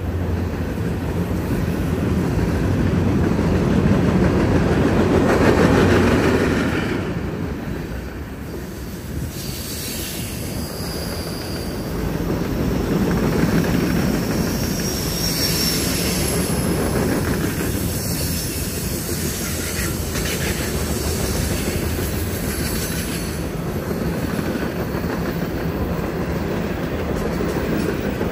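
Freight train cars rolling past on a curved track: a steady rumble of wheels on rail, with a high wheel squeal coming and going in the middle stretch.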